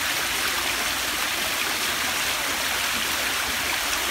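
Water splashing down a three-tiered fountain into its basin: a steady, even rush of falling water.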